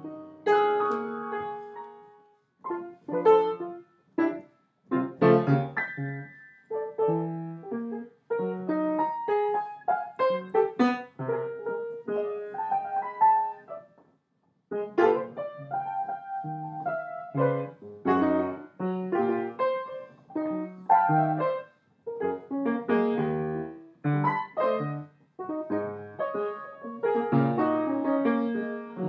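Piano playing: separate struck notes and chords in short phrases, broken several times by brief pauses.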